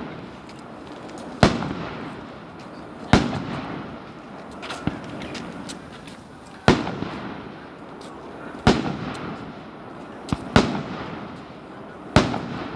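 Aerial firework shells bursting: about eight sharp bangs, roughly one every one and a half to two seconds, each followed by a rolling echo.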